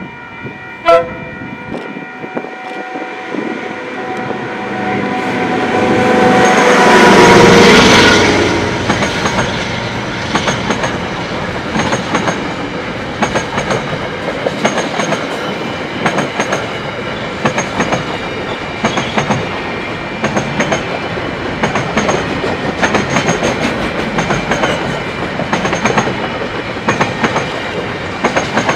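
A KiwiRail DL class diesel-electric locomotive sounds one long horn blast as it approaches. It is loudest as it goes by about seven or eight seconds in, followed by the container wagons of a freight train clattering past in a steady clickety-clack over the rail joints.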